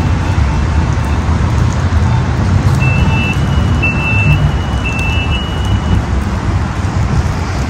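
Steady rumble and hiss of a tram and street, with a run of high electronic beeps from about three to six seconds in: three short beeps over a longer, slightly higher tone.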